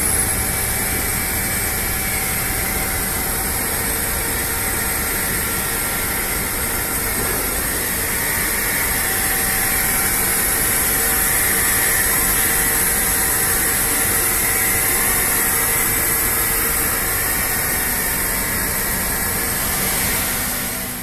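A machine running steadily, a continuous hiss with faint steady tones.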